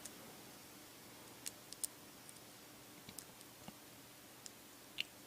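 Faint, irregular clicks of a lock pick and tension tool working the pin stack inside a Burgwaechter Alutitan 770 40 padlock, setting pins one at a time.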